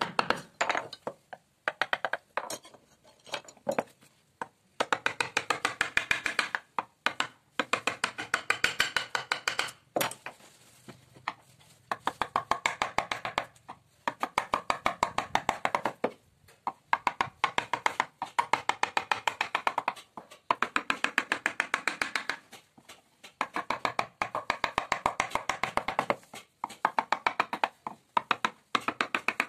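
Wooden mallet tapping a carving chisel into a wooden panel: rapid runs of sharp wooden knocks, several a second, each run lasting a couple of seconds with short pauses between.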